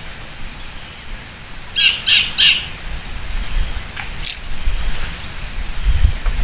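A bird gives three short calls in quick succession about two seconds in, over a steady high-pitched whine. There is some low rumbling near the end.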